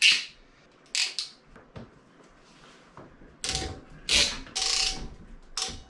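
Tool work: a series of short, sharp mechanical clicks and rasps, several quick bursts about a second apart, some with a faint whine.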